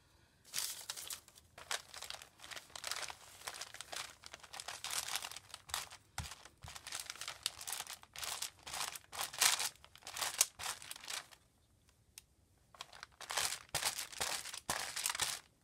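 Paper rustling and crinkling as paper scraps are handled and lifted off a notebook page and the page is smoothed by hand, in an irregular run of scratchy noises that stops for about a second near the end and then picks up again.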